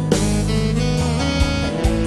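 Live campursari band music playing instrumentally: a keyboard melody over a steady drum beat, about two beats a second.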